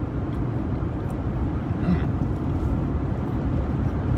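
Steady low rumble of a car, with a brief faint sound about two seconds in.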